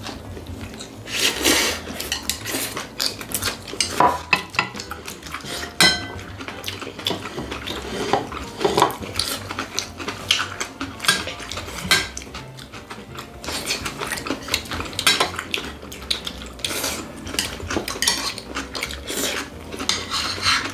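Chopsticks and spoons clicking and clinking against ceramic plates and brass bowls during a meal, with short eating noises between them. A few of the clinks ring on briefly, around four and six seconds in.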